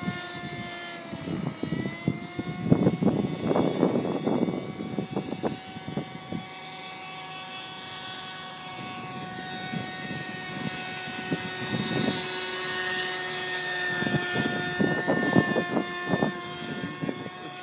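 Radio-controlled model helicopter flying, its motor and rotor giving a steady, high whine whose pitch dips briefly about a second in and then recovers. Gusts of wind buffet the microphone with rumbling bursts a few seconds in and again near the end.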